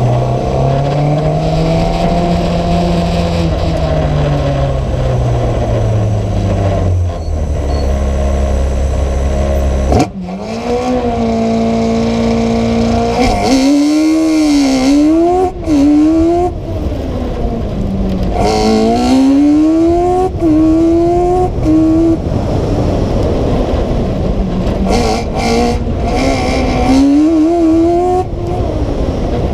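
Competition car's engine heard from on board: held at a steady, fairly low pitch for about ten seconds, then after a sudden change the car sets off and the engine climbs in pitch and drops back again and again as it accelerates and changes gear.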